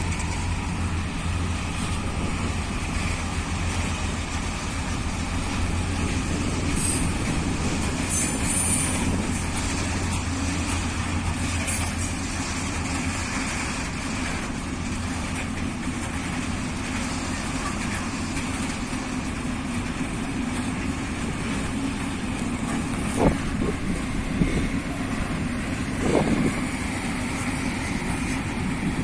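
Freight train of open-top wagons rolling past, a steady rumble of steel wheels on rail. Brief high squeals come about a quarter of the way in, and a few sharper knocks come late on.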